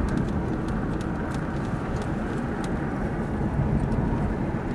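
Car driving along a narrow paved country road, heard from inside the cabin: a steady low engine and tyre rumble with a few faint light ticks.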